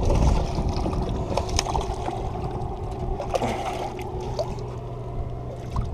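Water lapping and trickling against the shoreline rocks, over a steady low rumble, with a few small clicks.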